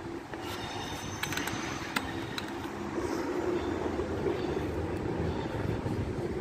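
Train running on the rails, a low rumble that grows louder about halfway through, with a few faint clicks and short high squeaks about a second in.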